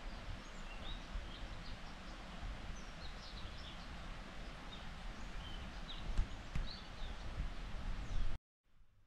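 Forest ambience: a steady rushing background with birds giving scattered short, high chirps. Near the end it cuts off abruptly to a much quieter room tone.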